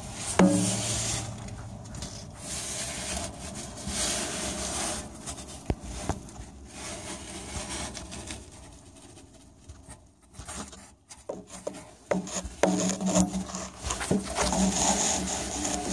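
Irregular rubbing, scraping and rustling close to the microphone, with scattered sharp clicks: handling noise as the camera and hands move about under the truck.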